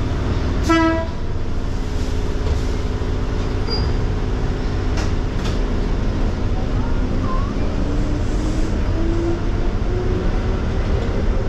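Konan Railway electric train running, with one short toot of its horn about a second in. From about two-thirds of the way through, the motor whine rises steadily in pitch as the train speeds up, with a few sharp clicks from the running gear.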